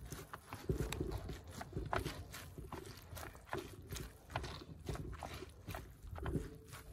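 Rubber-gloved hands kneading and pressing dye-soaked, scrunched cotton fabric in a plastic tray, mushing the Procion dyes together: irregular wet squelches and soft clicks.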